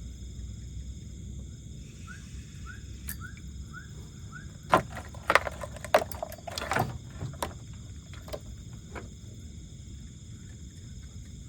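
Steady high-pitched drone of night insects, with a quick run of short chirps a few seconds in. A burst of loud knocks and rustling comes around the middle.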